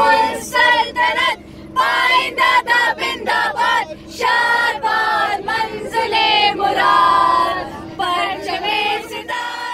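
A group of passengers singing together loudly inside a van, voices held on long notes over a steady low hum.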